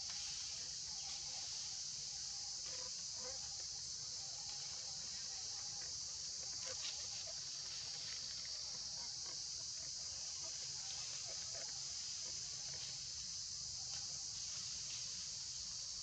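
Steady, high-pitched chirring of insects in the surrounding trees, with a few faint ticks or rustles over it.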